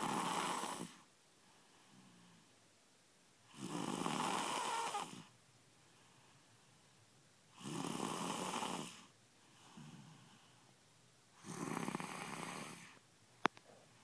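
A person snoring loudly: four long snores, about one every four seconds, with fainter breaths between them. A single sharp click comes near the end.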